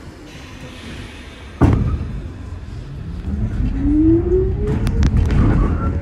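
A subway train comes past the platform with a sudden loud rush of wheel and rail noise about a second and a half in. A motor whine then rises in pitch as the train gathers speed, and sharp clicks from the wheels over rail joints come near the end.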